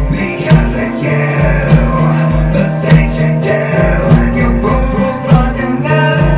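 Industrial goth rock song: guitar and sustained low notes over a pounding drum beat.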